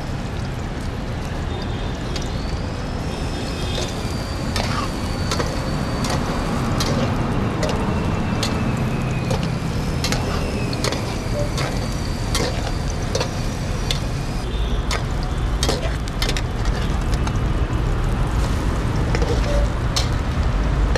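Bread omelette frying in desi ghee in a metal frying pan, with a steady sizzle. A spoon and spatula clink and scrape against the pan many times.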